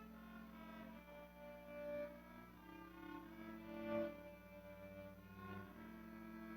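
Soft instrumental music: a slow melody of long held notes with a string-like tone.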